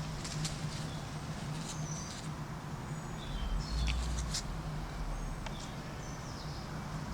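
Birds chirping in short, high calls over a steady low hum, with a few sharp clicks and a brief low rumble a little past the middle.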